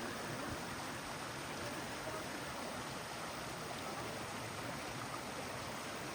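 Steady, even noise of running water.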